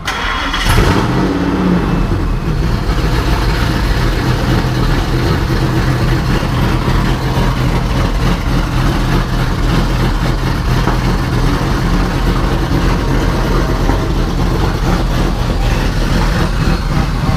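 Supercharged 5.4 L V8 of a 2002 Ford SVT Lightning, built with ported heads and a cam, firing up suddenly under a second in on its first start after a rebuild. It then keeps running loudly and steadily.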